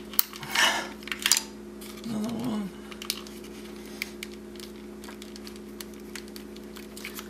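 Hard plastic ignition-coil wiring connectors clicking and rattling as they are wiggled and pried loose by hand, with several sharp clicks and a scrape in the first second and a half. A brief grunt of effort comes about two seconds in, over a steady low hum.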